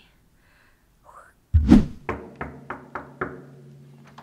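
A heavy thud about a second and a half in, then a run of five quick knocks, about three a second, over a steady low hum.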